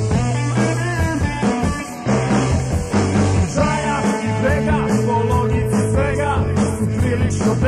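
Rock music with a steady beat and bass; a voice sings over it from about halfway through.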